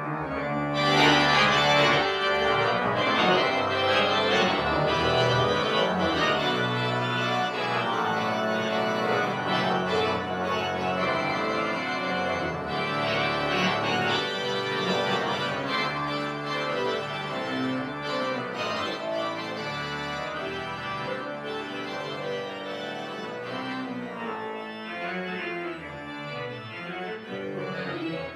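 1979 Austin pipe organ playing a full-textured piece, many held notes sounding together over a moving bass. It is loudest a second or two in and gradually grows softer.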